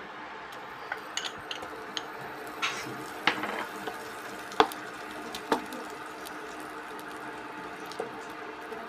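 Wooden spatula tapping and scraping against a nonstick frying pan while a pat of butter melts, with a faint sizzle under it. Scattered sharp taps, the loudest a little past the middle.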